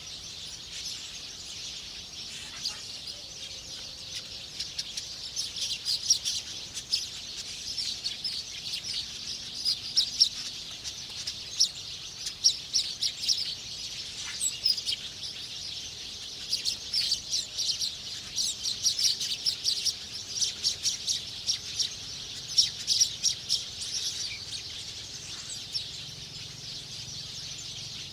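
Small birds chirping in rapid trains of short high notes, busiest through the middle of the stretch, over a steady high-pitched background hiss.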